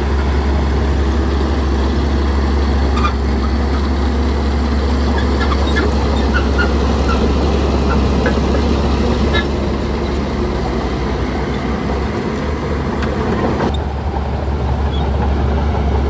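Heavy diesel construction machinery running steadily under load, with a strong low drone.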